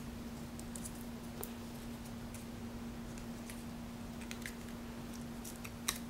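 Faint, scattered small clicks and crinkles of fingers handling and shaping cardstock paper leaves on a paper flower stem, with one sharper click near the end, over a steady low hum.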